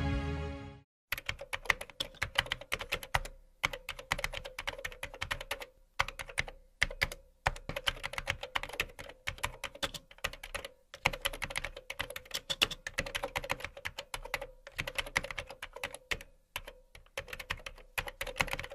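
Computer keyboard typing in fast runs of clicks, broken by short pauses, with a faint steady hum underneath. Music cuts off about a second in.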